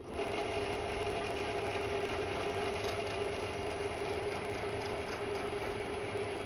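Small vertical milling machine running with a fly cutter facing the top of a bogie stretcher casting: a steady machine hum with a continuous cutting noise.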